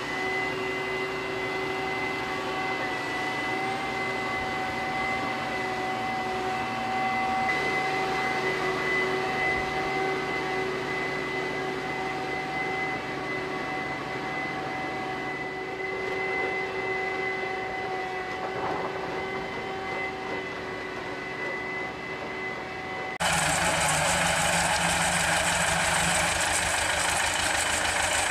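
Dewulf root-crop harvester and its tractor running in the field, a steady machine hum with two held whining tones. Near the end the sound switches abruptly to a louder, harsher run of a tractor-mounted lavender harvester, engine and cutting gear together.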